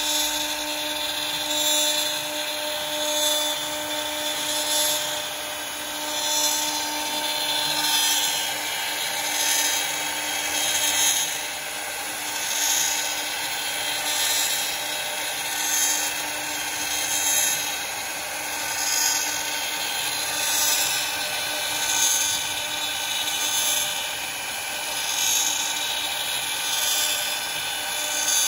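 High-speed router spindle of a CNC wood lathe carving a square wooden blank: a steady high whine with cutting hiss, swelling and easing regularly about every second and a half.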